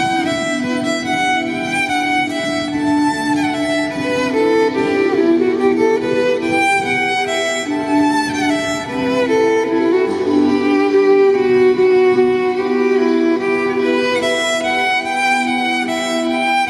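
Violin playing a flowing melody of sustained notes, amplified through a loudspeaker on a stand.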